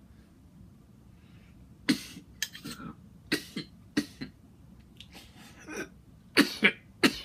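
A man coughing after a hit of marijuana smoke from a bong: a run of short coughs starting about two seconds in, loudest near the end.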